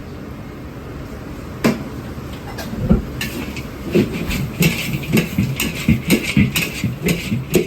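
Cookware clattering in a busy kitchen: a run of sharp metal knocks, several a second, starting about two seconds in, with short hissing bursts among them. A steady hum of kitchen equipment runs underneath.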